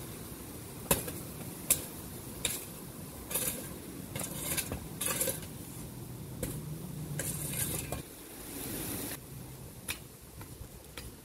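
Metal shovel working dry garden soil: three sharp clinks of the blade, then a run of scraping strokes as it digs and drags through the earth.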